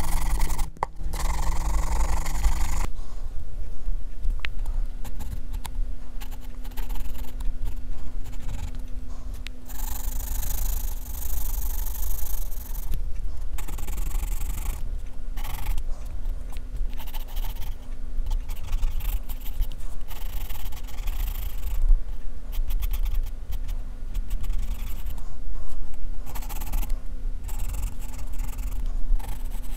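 HB graphite pencil scratching across drawing paper in many short, irregular strokes, shading and sketching.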